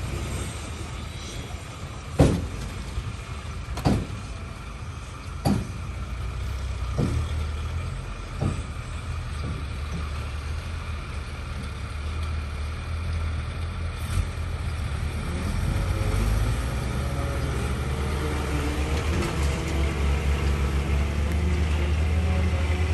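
Heavy vehicle engine running steadily. In the first half there is a series of five sharp knocks, about one and a half seconds apart. Over the last several seconds the engine grows louder.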